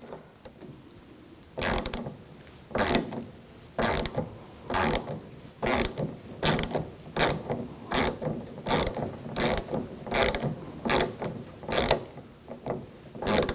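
Hand ratchet with an 8 mm socket loosening a nut, with a short burst of pawl clicks on each back-swing. The strokes start about a second and a half in and come about once a second, a little faster towards the end.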